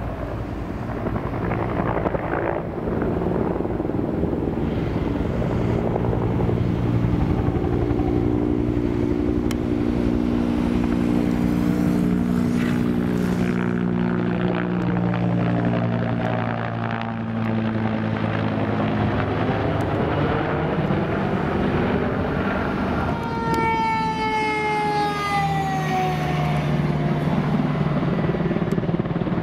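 Bell UH-1 Huey helicopter running loud and steady, its pitch sagging as it passes overhead. Later a fire engine goes by with a siren tone that glides down over a few seconds, and its diesel engine runs low underneath.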